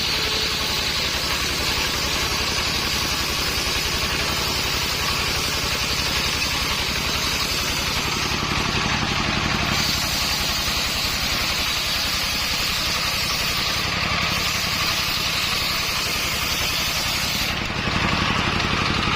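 Engine of a mobile circular sawmill running steadily, with the saw blade's high hiss over it; the hiss thins out for a couple of seconds about halfway through and changes again near the end.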